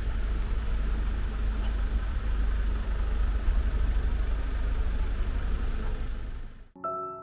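Steady low rumble of a vehicle engine. Near the end it cuts off abruptly and piano music begins.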